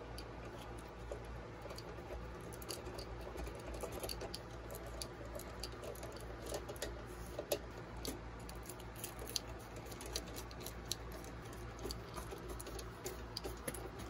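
Hand screwdriver driving the power-supply mounting screws into the back of a steel PC case: faint, irregular small clicks and ticks of the bit turning in the screws, over a low steady hum.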